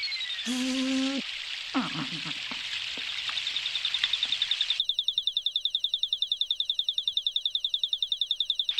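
Cartoon soundtrack: a steady hiss of fountain water falling, with two brief voice sounds from a small character early on. From about five seconds a fast warbling magic effect, about a dozen pulses a second over a faint steady tone, accompanies a small cat flying in on a broom and cuts off suddenly near the end.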